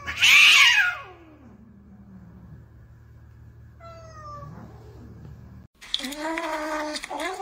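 Domestic cat giving a loud cry whose pitch slides steadily down over about two seconds, then a shorter falling cry about four seconds in. Near the end, after an abrupt change of background, come further cat cries that rise and fall in pitch.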